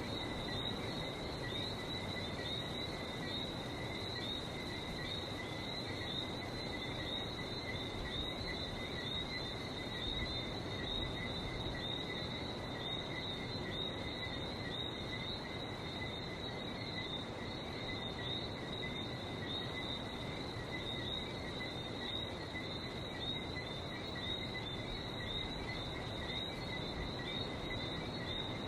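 A chorus of Lesser Antillean whistling frogs calling without pause, many overlapping short high chirps, over a steady low wash that fits the sea.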